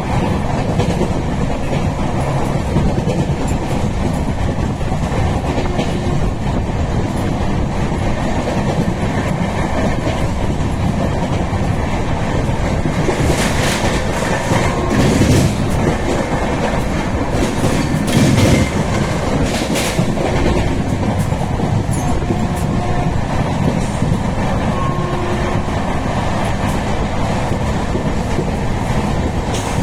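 Express passenger train running at about 110 km/h, its wheels giving a steady loud rumble and clickety-clack on the track. About halfway through comes a stretch of sharper clattering strokes.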